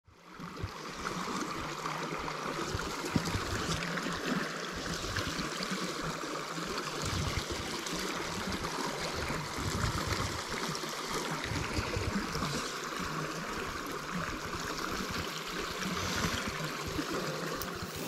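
Small freestone mountain stream flowing, a steady wash of running water that fades in at the start.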